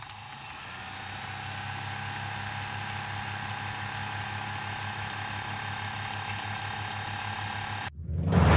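Old film projector sound effect: a steady mechanical whir and hum with light crackle and soft ticks about one and a half times a second. It cuts off suddenly about eight seconds in, and a low hit follows.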